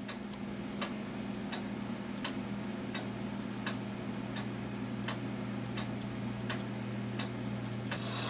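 Gilbert 1913 spring-wound clock movement ticking steadily, about three ticks every two seconds, as its escapement beats with the pendulum swinging. A steady low hum lies underneath.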